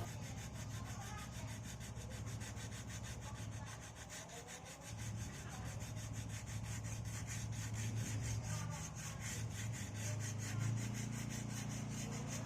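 Sandpaper rubbing on a coconut shell in quick, even back-and-forth strokes, smoothing the surface around a crack.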